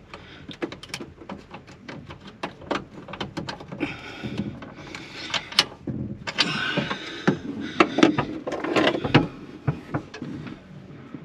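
Hand work under a car's dashboard: scattered clicks and light knocks with rustling and scraping, as a brake-light switch bracket and its nuts are adjusted by hand.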